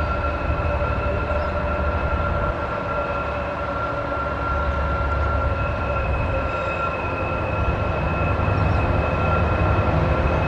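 Diesel freight locomotive approaching slowly, its engine's low rumble under a steady high whine, growing a little louder toward the end.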